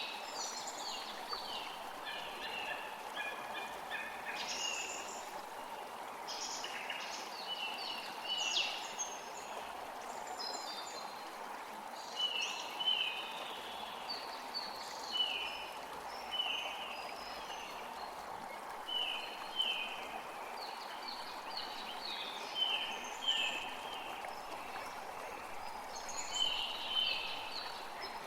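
Forest creek running steadily, with several songbirds chirping and singing in short repeated phrases over it.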